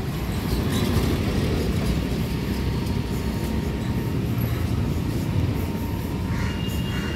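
Steady low rumble of motor-rickshaw engines and street traffic.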